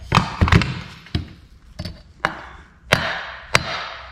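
A hammer rapping on a stuck part of an old Poulan chainsaw while it is pried, to shock it loose: about eight sharp, irregularly spaced knocks, some with a short ring.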